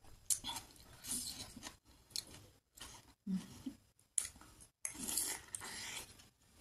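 Close-up mukbang eating sounds: chewing a soft chicken wonton dumpling, with short wet clicks and smacks of the mouth and a brief hummed "mm" about halfway through.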